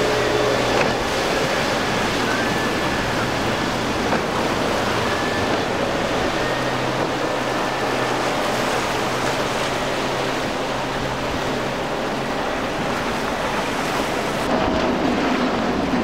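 Surf and the wash of a boat's wake, with the steady hum of a single Suzuki 140 hp outboard running at speed underneath; the motor's hum drops away about twelve seconds in.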